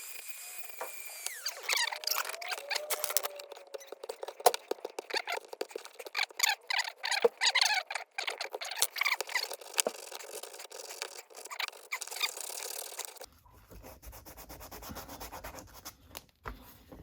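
Plastic and rubber sewer fittings squeaking and rubbing as they are worked by hand, starting with wavering squeals and going on as a run of irregular scrapes and clicks. Near the end it drops to quieter handling noise.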